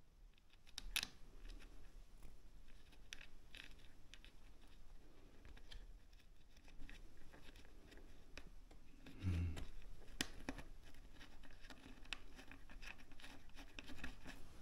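Small handling sounds of hand work on scooter parts: scattered light clicks, scrapes and rustles, with a sharp click about a second in and a dull knock about nine seconds in.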